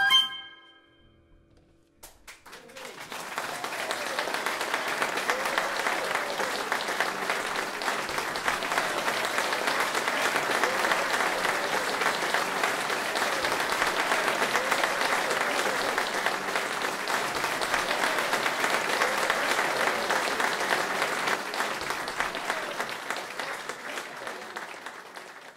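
A saxophone band's last chord cuts off right at the start. About two seconds later a live audience breaks into applause that holds steady for some twenty seconds and fades out near the end.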